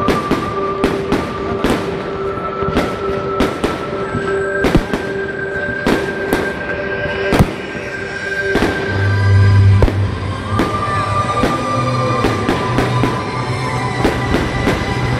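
Fireworks bursting in quick succession, many sharp bangs, with music playing at the same time. From about halfway the bangs thin out and the music's heavy bass notes take over.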